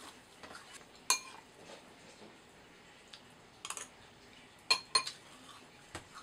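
Spoon clinking against a cereal bowl: a few sharp, ringing clinks, the loudest about a second in and two close together near the five-second mark, with fainter taps between.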